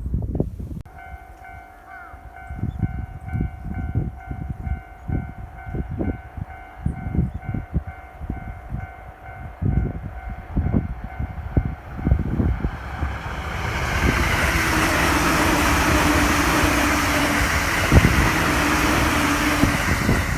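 Japanese railway level-crossing warning bell ringing in a steady repeating pattern, with wind gusting on the microphone. About thirteen seconds in, a JR Jōban Line train comes through the crossing with a loud, steady rush of wheels on rails, a low steady tone sounding under it for several seconds.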